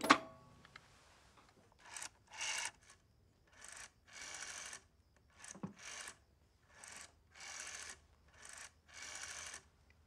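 Rotary-dial telephone being dialled: a sharp clack at the start, then five digits, each a short rasp as the dial is pulled round followed by a longer whirr as it spins back.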